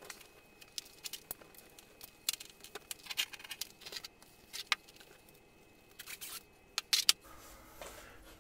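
Scattered light clicks, taps and rustles of a stretch-fabric backdrop being worked over its tubular frame and handled.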